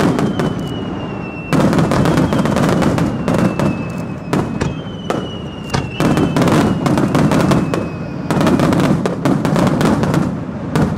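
Fireworks display: aerial shells bursting one after another in a rapid string of sharp bangs and crackle, getting denser about a second and a half in. Several high whistles slide slowly down in pitch through the bangs.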